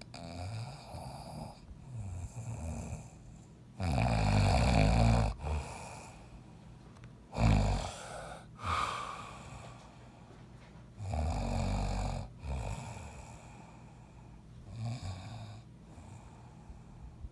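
A grown man snoring loudly and irregularly in his sleep, one rasping breath at a time. The loudest snores come about four seconds in and again about eleven seconds in, with a short sharp one near eight seconds.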